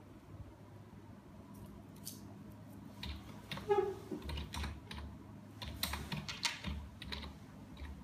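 Typing on a computer keyboard: irregular keystrokes that start about two seconds in, entering a team name. One short squeaky tone cuts in around the middle.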